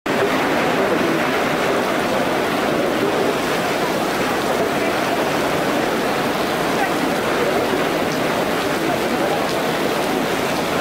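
Steady rush of water from storm-drain manholes gushing up onto a flooded pavement in a heavy downpour. The overloaded storm drains are overflowing instead of draining.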